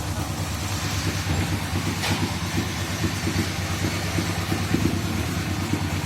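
Engine idling steadily, a low even running with rapid pulsing, with a brief click about two seconds in.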